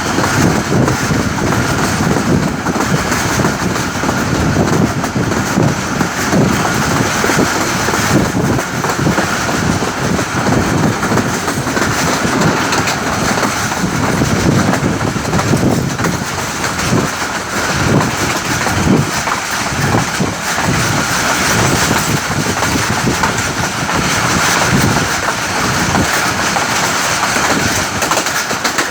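Pakistan Railways Rahman Baba Express passenger train running at speed: a loud steady rumble of wheels on rails, with irregular clacks over the rail joints.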